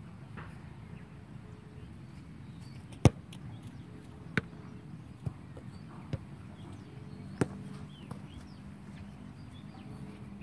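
Several sharp knocks a second or so apart, the loudest about three seconds in, over a low steady hum.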